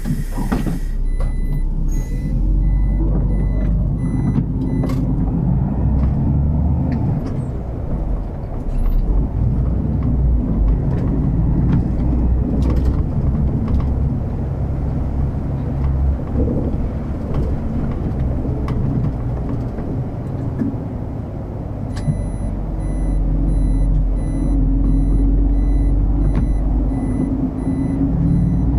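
City bus heard from inside, its engine and road noise running steadily. A repeated high electronic beep sounds for a few seconds about a second in, and again through the last several seconds, when the engine grows louder.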